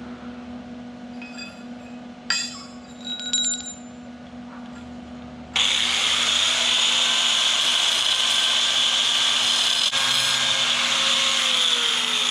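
A couple of metallic clinks, then an angle grinder with a DeWalt cut-off wheel starts abruptly about halfway through and cuts steel tubing with a loud, steady high-pitched grinding.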